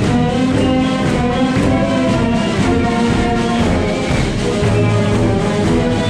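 Community concert band playing, with brass and tubas carrying sustained notes, while the audience claps along.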